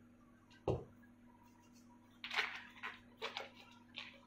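A single dull thump a little under a second in. From about two seconds in comes a run of rustling and small knocks as gloved hands handle a tissue.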